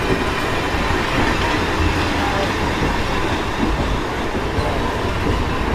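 Train running on the tracks at a busy station: a steady low noise of wheels on rails, with faint voices from the platform behind it.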